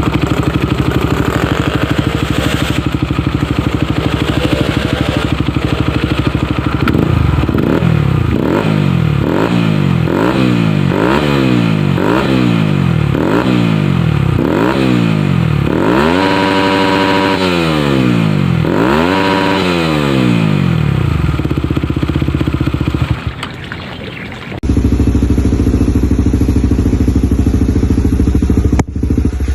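Kawasaki KLX 250 with a swapped-in Honda CBR150R single-cylinder four-stroke engine idling, then revved in quick blips about once a second. After that come two longer revs and a return to a steady idle.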